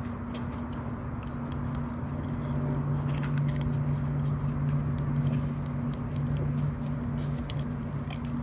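A pit bull-type dog licking and biting at a freeze pop in its plastic sleeve: irregular wet smacks, clicks and crinkles. A steady low hum runs underneath.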